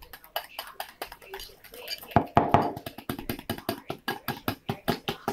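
Wire whisk beating egg yolks in a glass mixing bowl: a quick, even run of clinks as the wires strike the bowl, about five a second.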